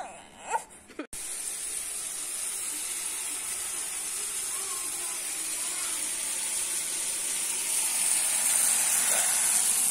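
Steady sizzling hiss of food frying in oil in a pan, starting abruptly about a second in and growing slightly louder toward the end. A baby whimpers briefly just before it.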